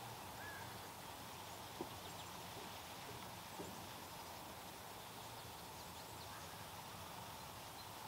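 Faint outdoor background noise with a faint steady hum, one brief faint chirp near the start, and two soft clicks about two seconds apart.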